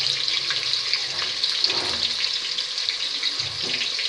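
Sliced onions sizzling in hot oil in a pressure cooker: a steady frying hiss with fine crackles throughout.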